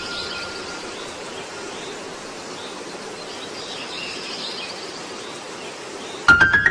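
A steady hiss of noise with faint high chirps through it, then a quick run of sharp clicks with short rising tones near the end.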